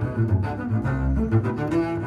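Solo double bass played pizzicato: a run of finger-plucked notes, with a deep low note about a second in.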